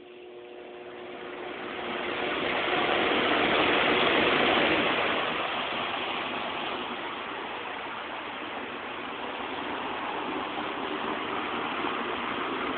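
Lakewood P-222 two-speed electric box fan starting up on high: a motor hum at first, then a rush of air that grows over the first few seconds as the blades come up to speed and settles into a steady whoosh.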